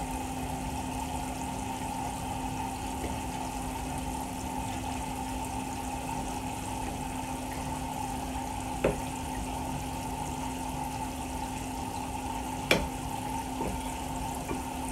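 Steady rush of water running from a kitchen tap, with a steady low hum under it. Two short sharp clicks stand out, about nine seconds in and again about four seconds later, while a home-canned jar's metal lid is being worked loose through a towel.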